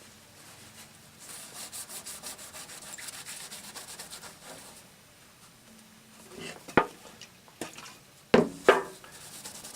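Paper towel wet with paint thinner scrubbing unexposed solder-mask paint off a home-made circuit board, in quick back-and-forth rubbing strokes, then a few sharp knocks later on.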